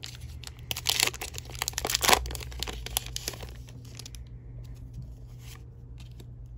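A Pokémon TCG booster pack's foil wrapper being torn open and crinkled, loudest around two seconds in. It goes on as softer crackling rustles before dying away past the halfway point.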